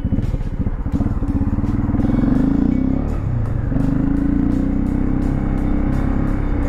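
Dirt bike engine accelerating on a trail ride. The revs climb over the first couple of seconds, drop briefly about three seconds in, then run steady at higher revs.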